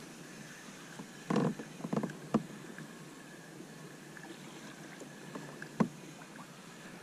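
A few sharp knocks and bumps on a plastic fishing kayak as a hooked small cutthroat trout is played in, over faint steady background noise.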